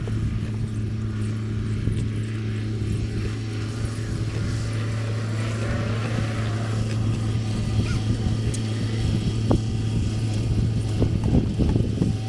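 An engine running steadily with an even low hum, with a few short knocks and clatter near the end.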